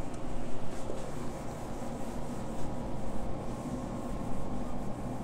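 A whiteboard eraser rubbing across a whiteboard in uneven strokes, over a steady room hum.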